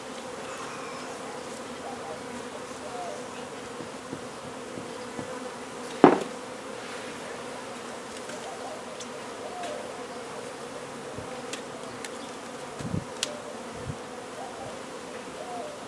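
Swarm of honey bees buzzing in a steady, droning hum around an opened hive. A single sharp knock about six seconds in, with a few faint ticks later.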